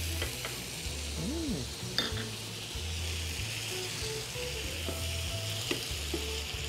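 Vegetables sizzling steadily in a hot frying pan while a wooden spatula stirs them, with a couple of light knocks of the spatula against the pan.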